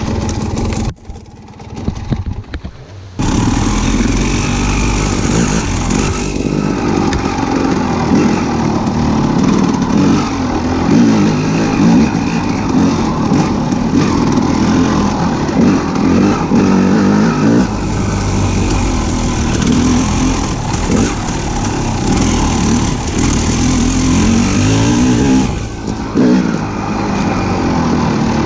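A motor vehicle's engine running and revving up and down, its pitch rising and falling. It drops away for about two seconds near the start.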